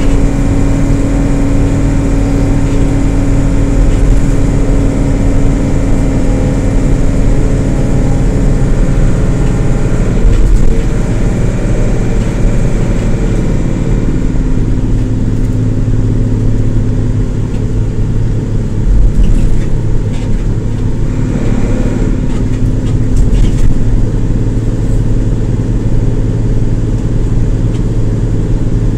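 A 2006 Isuzu LT133P bus's engine running under way with a steady note. The note drops a little about fourteen seconds in, and a few knocks and rattles come in the second half.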